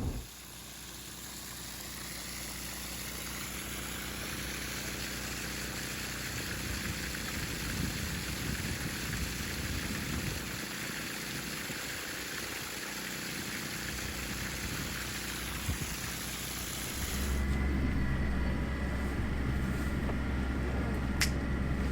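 Steady vehicle noise: a broad, even rushing sound that fades in over the first seconds. About 17 seconds in it cuts to a louder, low, steady engine hum.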